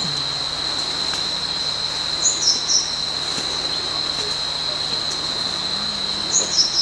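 Forest insects keeping up a steady, high-pitched, unbroken buzz. Two short high chirps, each falling in pitch, cut through it about two seconds in and again near the end.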